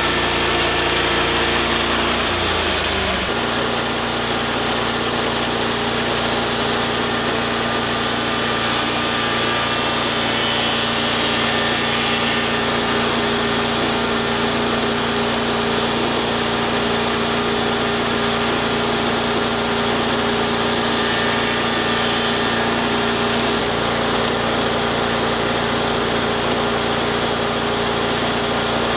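TimberKing 1220 portable bandsaw mill running steadily, its engine note shifting about three seconds in and then holding even.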